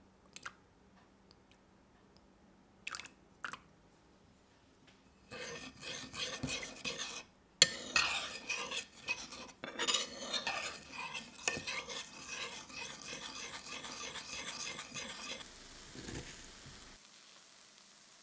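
Metal spoon stirring teriyaki sauce in a small bowl, clinking and scraping against the sides for about ten seconds, with one sharp clink near the start of the stirring. A few light clicks come before it.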